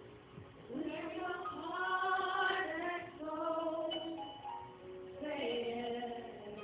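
A praise song: a singer's voice delivers two sustained phrases over soft instrumental accompaniment, with a short break between them.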